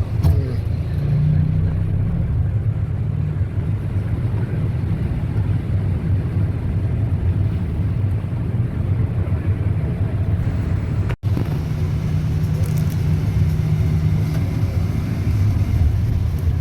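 Boat engine running steadily, a low rumble with a steady hum, heard on board the catamaran. The sound cuts out for an instant about eleven seconds in.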